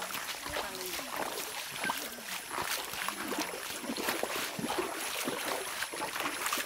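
Feet wading through shallow stream water, a run of small irregular splashes and sloshes.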